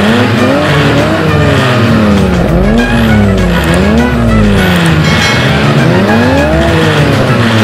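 Race-car engine sound revving up and falling back again and again, each climb lasting about a second, like a car shifting through the gears. The ride-on toy cars are battery-powered, so this is a played engine sound, not a running engine.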